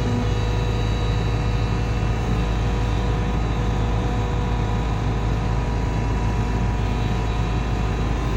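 Sany SY140C-9S excavator's diesel engine running steadily at working speed, a constant hum with a few steady higher tones over it.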